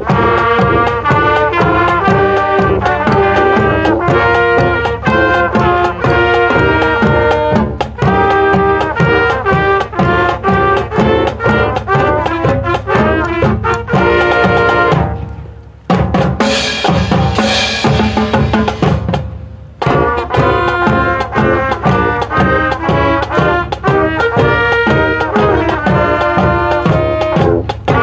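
School marching band playing a piece on brass and drums, trumpets and trombones over a steady beat. The music drops out for a few seconds about halfway through, then the full band comes back in.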